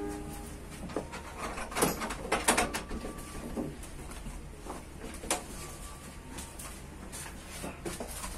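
Scattered clicks and knocks, the loudest a cluster about two seconds in and a sharp one about five seconds in, over a low steady hum.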